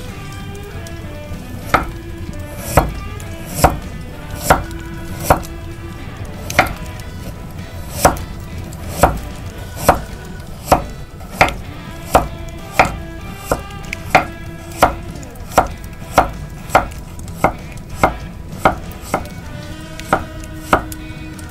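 Chef's knife slicing a carrot into rounds on an end-grain wooden cutting board. Each slice ends in a sharp knock of the blade on the wood, about one a second, starting about two seconds in.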